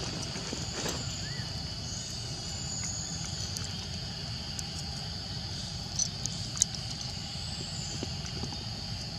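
Steady high-pitched drone of forest insects over a low background rumble, with two sharp clicks about six seconds in.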